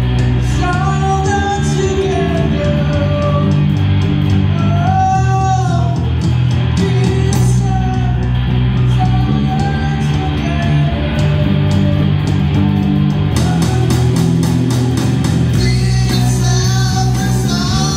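A live rock band playing in a small room: a man singing long held notes over amplified guitars and a steady bass line.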